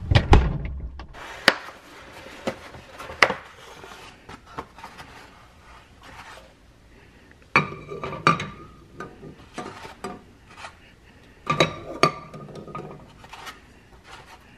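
Eggs being set one by one into an empty metal saucepan, each landing with a short knock and a brief metallic ring from the pot. A dull thump comes right at the start, with scattered lighter knocks before the eggs go in.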